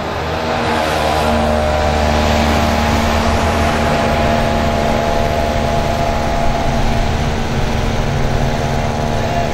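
A motor vehicle's engine running steadily close by: a low rumble with a steady pitched hum over it.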